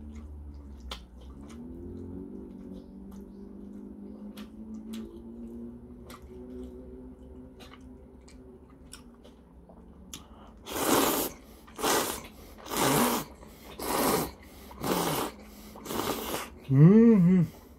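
A man slurping jajangmyeon noodles: six loud slurps about a second apart, starting about eleven seconds in. Near the end comes a rising-and-falling "mmm" in his voice. Before the slurps there is only quiet chewing under a low hum.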